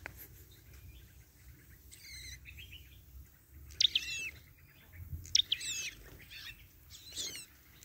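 Small songbirds chirping: short, high phrases of quick up-and-down notes about two seconds in, near four seconds, twice around five seconds and again near seven seconds, the ones near four and five seconds the loudest.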